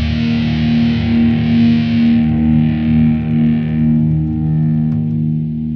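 Outro music: a distorted electric guitar chord held and slowly dying away.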